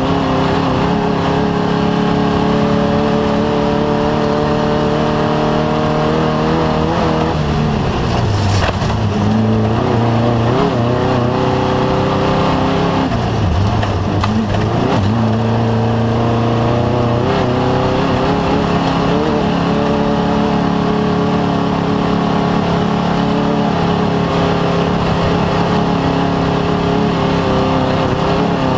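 Off-road race vehicle's engine running hard and steady. Its pitch dips and climbs back about eight seconds in and again around fourteen seconds.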